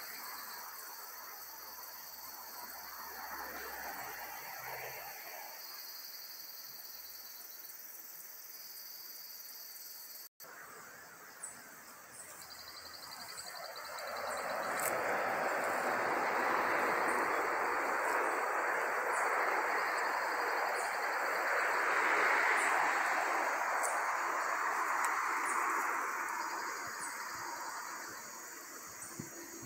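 Rural outdoor ambience: a steady high-pitched insect drone with faint high chirps. A broad rushing noise swells about halfway through, holds for around twelve seconds, then fades.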